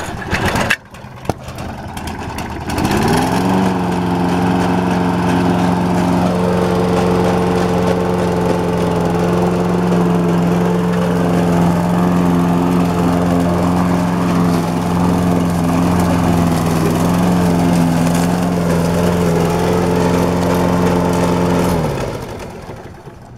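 A 7 hp lawn mower engine running on propane fed into its carburetor is pull-started and catches about three seconds in, its pitch rising briefly before it settles into a steady run. Near the end it winds down and stops as the valve on the propane bottle is closed.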